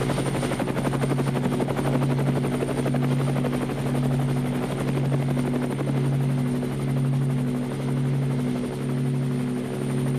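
Helicopter running: a steady low engine hum under a fast, even rotor chop.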